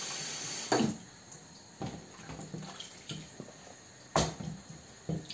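Kitchen tap running into a sink and shut off less than a second in, followed by small splashes and drips as gourd pieces are lifted out of a bowl of water, with a sharp knock about four seconds in.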